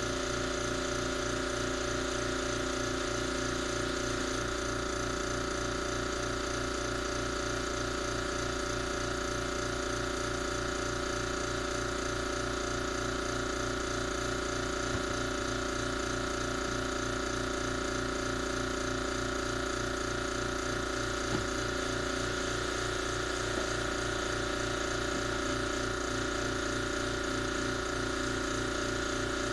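An engine idling steadily, with an even low throb and unchanging tone.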